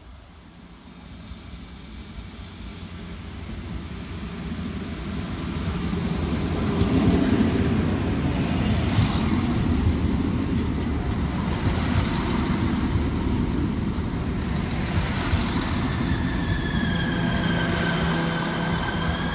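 Irish Rail 22000-class InterCity diesel multiple unit arriving. Its rumble grows louder as it approaches, then the carriages run past close by. About three quarters of the way in, a high steady squeal from the brakes or wheels sets in as the train slows to stop.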